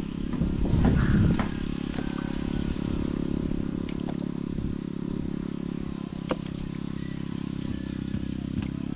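A small engine running steadily at an even speed, with a few faint clicks over it.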